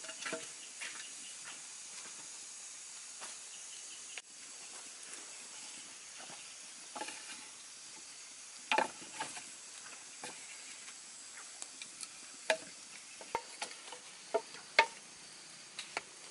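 Small wood fire crackling in a clay stove under green bamboo poles that are heating and smoking over the flames. A steady low hiss runs under scattered sharp pops, several of them in the second half.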